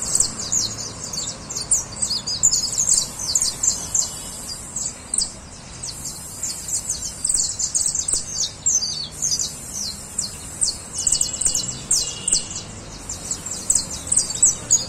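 Caged saffron finch singing: long runs of quick, high, down-slurred notes with a few brief pauses.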